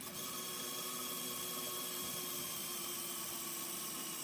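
Lego Technic model's electric motor running its pneumatic pump, a steady small-motor whir that holds at a constant level.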